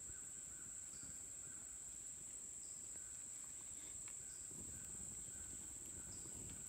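Steady high-pitched insect chorus in summer woods, with shorter chirps repeating about every second and a half. A soft low rushing noise comes in during the second half.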